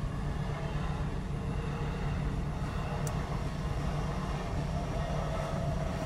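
Orange-striped electric commuter train rolling across a level crossing: a steady rumble of wheels on track, with a faint even whine coming in near the end.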